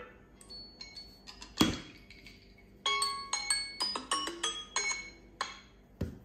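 Samsung phone alarm tone of bright, bell-like struck notes that ring out. A few come scattered at first, then a quicker run of about a dozen at roughly four a second, followed by a short thud near the end.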